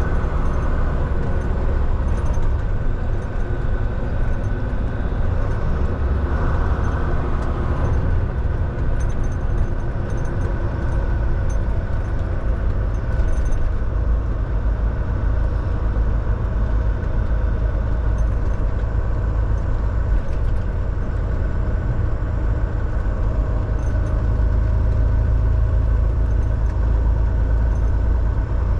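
Volvo semi truck driving at a steady pace: a continuous low diesel engine drone mixed with road and tyre noise.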